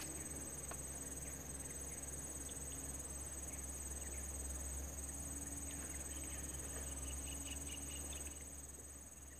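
Steady, high-pitched chorus of insects over a low rumble, with a few faint clicks.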